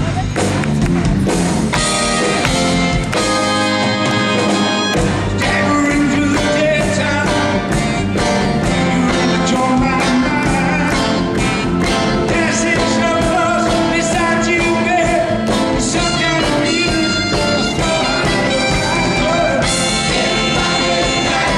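Live rock band playing, with drums and guitar and a voice singing over it.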